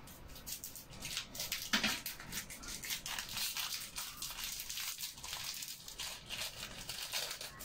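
Dried bay leaves crushed and crumbled by hand, giving irregular dry crackles and crinkles, the loudest a little under two seconds in.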